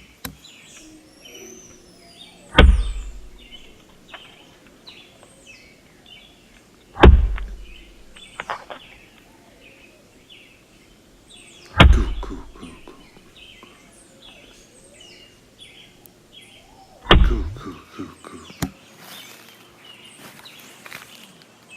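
Axe chopping fallen wood: four heavy blows with a deep thud, about five seconds apart. Birds chirp all the while.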